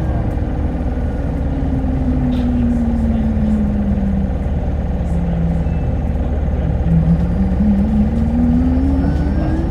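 Interior running noise of a Hino Blue Ribbon hybrid city bus under a steady low rumble. A drive whine falls in pitch over the first few seconds as the bus slows, holds low, then rises again from about seven seconds in as it picks up speed.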